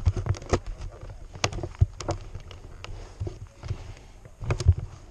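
Irregular knocks, thumps and rustling on a body-worn GoPro: handling and clothing noise picked up by the camera and its mount, with no engine running steadily.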